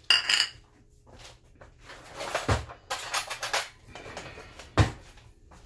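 A small ceramic bowl clinks down on a stone countertop with a brief ring, followed by light handling noises of dishes being moved and two dull knocks, about two and a half and five seconds in.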